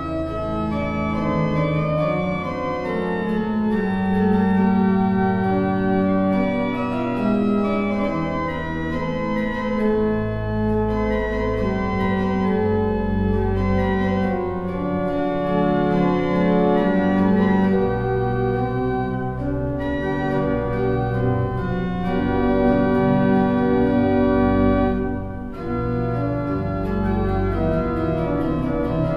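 Organ music: slow, sustained chords over held bass notes, with a short dip in loudness near the end.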